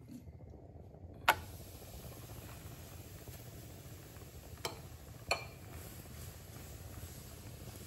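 Kitchen handling sounds while rolled dough is put into a frying pan: one sharp click a little over a second in and two lighter knocks around five seconds in, over a steady low rumble.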